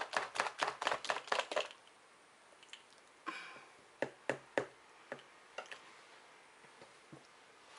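Wire balloon whisk beating Yorkshire pudding batter in a plastic bowl, the wires clicking against the bowl in a fast, even rhythm of about six to seven strokes a second. The beating stops after about a second and a half, followed by a few separate taps and knocks of the whisk against the bowl.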